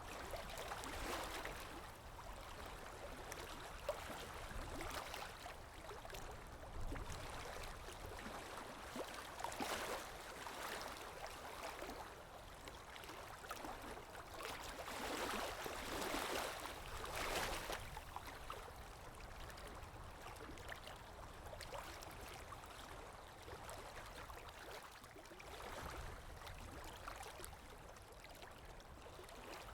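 Water lapping with wind: a soft wash of noise that swells and ebbs every few seconds, fullest about halfway through.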